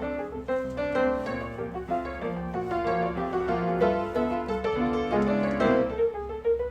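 Background music led by piano, with a gentle melody of steadily changing notes.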